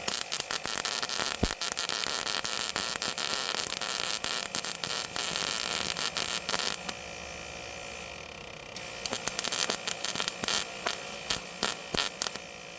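Eastwood MP140i MIG welder's arc crackling while welding a patch onto thin car body sheet metal. One run lasts about seven seconds, then after a short pause comes a string of short bursts.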